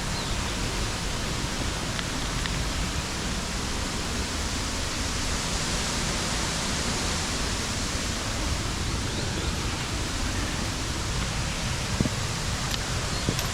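Steady rushing water of a mountain stream and waterfalls, with one short click near the end.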